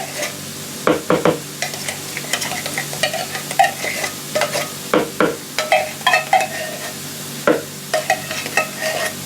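Spoon stirring and scraping through a bowl of green beans and cream of mushroom soup, with irregular knocks and short squeaks against the bowl. Under it, a steady sizzle of ground beef, onions and bell peppers frying in a pan.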